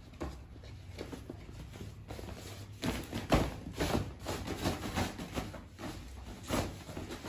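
Rustling and crinkling of a collapsible fabric laundry basket being opened out and handled, in irregular bursts with a few sharper knocks, the loudest about three and a half seconds in.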